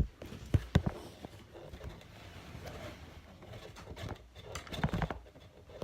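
Handling knocks and bumps: a few sharp knocks at the start, light rustling, then a quick cluster of knocks about five seconds in.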